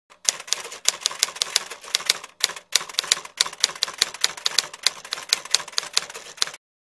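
Typewriter typing sound effect: a quick run of key clicks, about five or six a second with some louder strikes among them, stopping abruptly shortly before the end.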